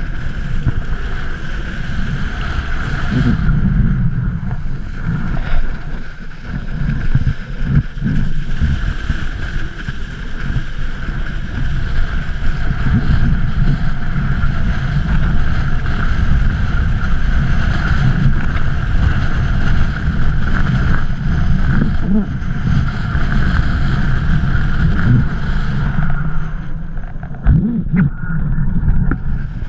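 Strong wind buffeting the microphone of a kite-bar-mounted camera while kiteboarding at speed, a loud rumble with water rushing under the board. A steady high whistle runs through it, and the high sounds drop away near the end with a couple of thumps.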